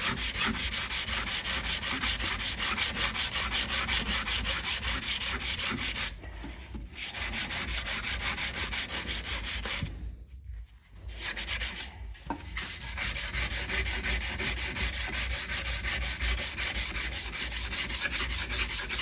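Abrasive hand-rubbing on the welded steel bumper, a fast even rhythm of scraping strokes that stops briefly twice, about six and ten seconds in. The weld is being worked back by hand to get it dead flat, with no angle grinder.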